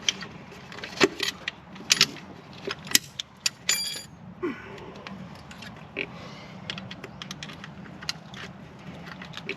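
Sharp plastic clicks and knocks of a distributor cap and spark plug wires being handled and refitted, several distinct clicks in the first four seconds, then quieter rattling and fiddling.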